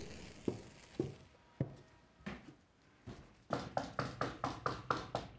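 Footsteps thudding up wooden stairs, about five slow steps, then a quick rap of about eight knocks on a wooden door.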